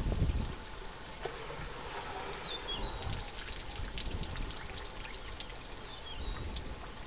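Water pouring and trickling from an African elephant's trunk into a waterhole as it drinks, loudest in the first half second and then a quieter dripping. A bird chirps twice.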